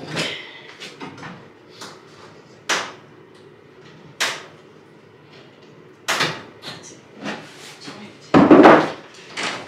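Large painted wooden wall panel being worked loose from the wall by hand: scattered sharp wooden knocks, then a louder thump lasting under a second near the end.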